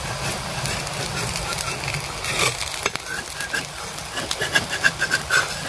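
Semolina roti frying in oil on a hot iron tawa: a steady sizzle with scattered crackles and pops, thickest in the second half.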